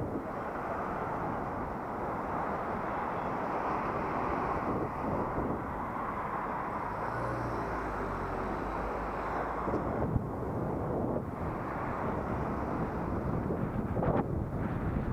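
Steady rush of wind and traffic noise picked up by a helmet-mounted action camera while riding, with a low hum swelling for a couple of seconds in the middle and a few short knocks near the end.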